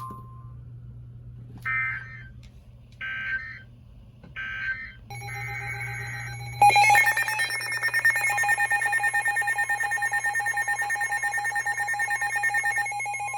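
Emergency Alert System signal: three short screeching digital data bursts of the SAME code, then a loud, steady, rapidly pulsing two-tone attention alarm that starts about six and a half seconds in. The alarm announces the next weather warning.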